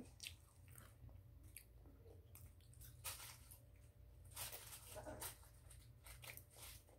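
Faint chewing and mouth sounds of a person eating, with a few short, slightly louder noisy bursts around the middle and toward the end.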